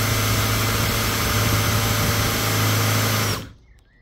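Power drill spinning a large bit at high speed, boring through a carbon-fibre roof panel into the adhesive beneath; a steady motor whine that cuts off suddenly about three and a half seconds in, leaving faint birdsong.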